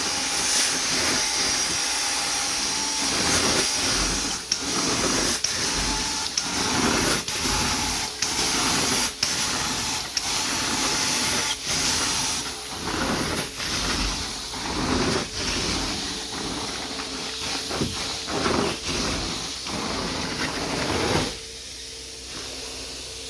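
Carpet-cleaning extraction wand hissing as it sprays and sucks water from the carpet, with a pulse at each pass, until it drops away sharply near the end.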